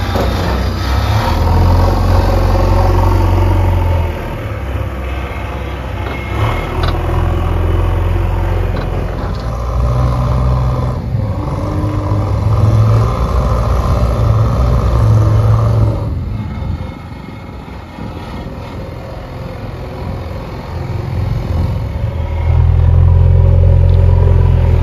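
Diesel engines of a JCB backhoe loader and a Mahindra tractor running as the loader lifts and dumps buckets of soil into a trolley. The engine note rises and falls, with abrupt shifts in level and pitch a few times.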